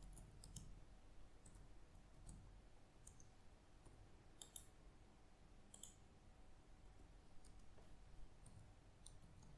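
Faint, irregular clicks of keys being typed on a computer keyboard.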